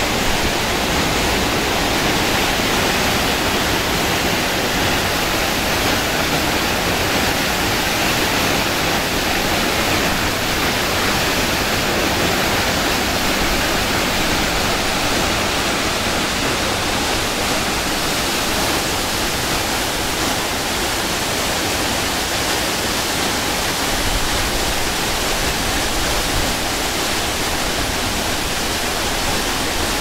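Waterfall in full spate, swollen with snowmelt, pouring into its plunge pool and the river below: a loud, steady rush of water.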